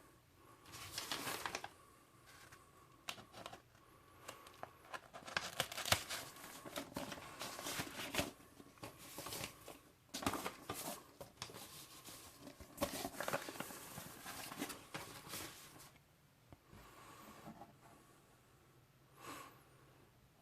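Paper and card sleeves of a vinyl LP being handled and slid in and out, giving irregular bursts of rustling and crinkling. It goes quieter about three quarters of the way through, with one short rustle near the end.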